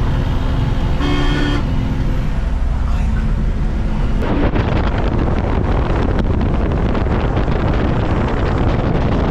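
Truck engine running steadily at road speed, heard in the cab, with a short vehicle horn blast about a second in. About four seconds in the even engine hum gives way to wind rushing and buffeting on the microphone.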